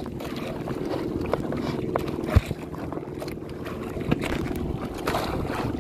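Small outrigger fishing boat's engine running steadily under way, with a single knock about two and a half seconds in.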